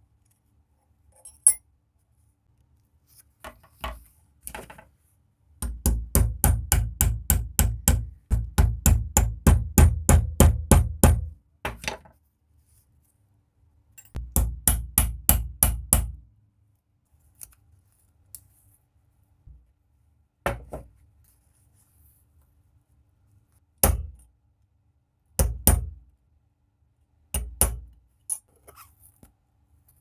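Hammer tapping a punch to drive the pins out of a rusty antique pocket knife's handle, metal striking metal. Two runs of quick blows, about four a second, then a few single blows spaced apart.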